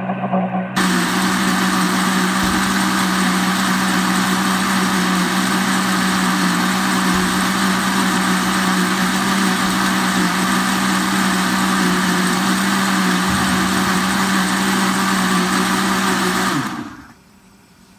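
Electric countertop blender running steadily, blending garlic sauce into a thick white emulsion. It is switched off about 17 seconds in and the motor winds down.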